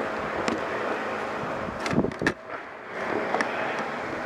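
Ball hockey play: sharp knocks of sticks and ball over steady background noise, with a quick cluster of two or three loud cracks about two seconds in.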